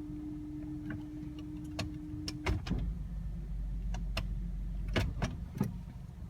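A 2008 Honda CR-V giving off a steady humming tone, the unexplained noise in question, which cuts off about two and a half seconds in. A low rumble carries on, with several sharp clicks and knocks through the second half.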